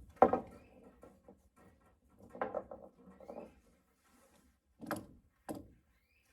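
A few knocks and clunks: a loud one just after the start, a rattling cluster in the middle, and two sharp knocks close together near the end.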